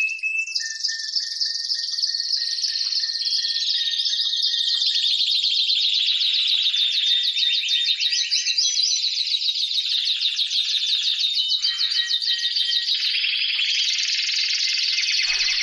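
Birds singing: a dense, continuous high-pitched trilling of fast repeated notes, with several songs overlapping.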